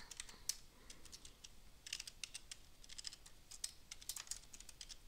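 Faint typing on a computer keyboard: scattered keystrokes in small clusters.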